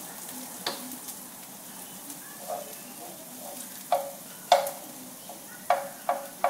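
Food sizzling in a frying pan on a gas stove, with a cooking utensil knocking against the pan several times, mostly in the second half, the loudest about halfway through; the pan rings briefly after each knock.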